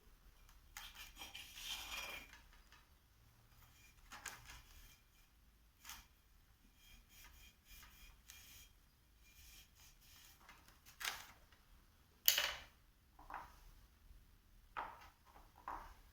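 Metal parts and hand tools being handled during hydraulic cylinder seal work: irregular clinks, taps and scraping, with a longer scrape about a second in and a sharp knock about twelve seconds in.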